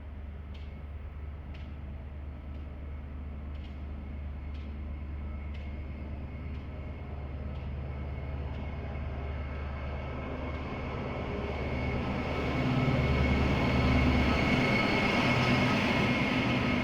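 Train arriving: a low steady rumble that builds gradually, then grows much louder about three quarters of the way in as the train draws close.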